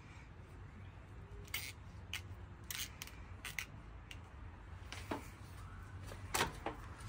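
Black rubber fuel hose being handled and uncoiled: a series of short, irregular rubbing and scraping sounds, the loudest near the end, over a steady low hum.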